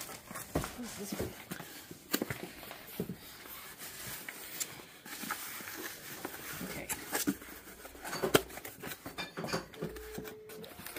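Handling noise of cardboard and plastic packaging: scattered rustles, scrapes and light knocks as a white cardboard box is pulled out of a packed pallet and turned over in the hands, its end flap starting to open near the end.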